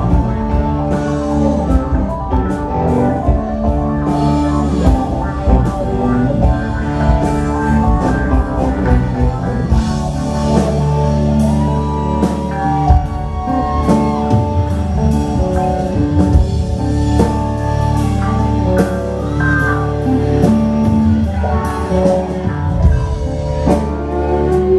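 A Southern rock band playing live, with electric guitars, a drum kit and keyboards together at full volume.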